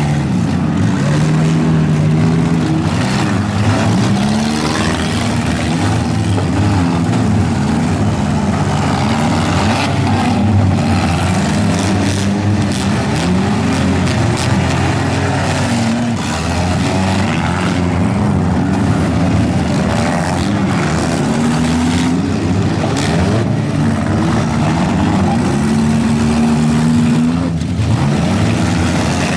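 Several four-cylinder demolition derby cars' engines revving up and down over one another, with a few crashes of cars hitting each other.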